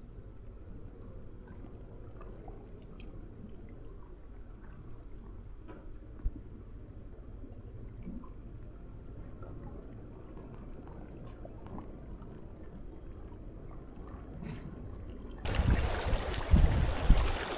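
Low, steady rumble of sea wind and water at a rocky shore, with a few faint small ticks. Near the end, loud wind noise buffeting the microphone starts abruptly.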